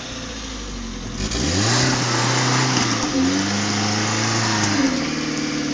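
Suzuki Samurai engine revving hard as the off-roader claws up a muddy slope. The revs climb steeply about a second in, hold, drop back and climb again, then fall near the end. A rush of noise from the tyres spinning and churning mud comes in with the first climb.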